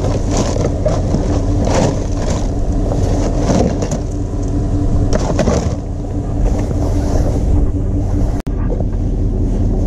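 Truck engine idling steadily, overlaid with several bursts of clattering as hands rummage through a cardboard box of metal scrap. The sound drops out for an instant about eight and a half seconds in.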